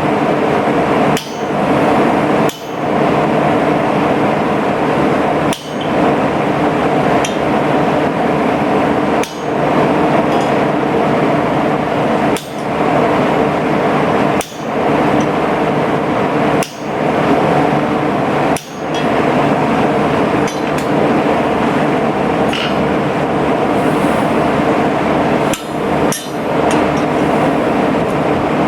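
Hammer working stainless steel on an anvil, the blows running together into a dense, continuous metallic din over a steady roar, broken by brief sudden drops every few seconds.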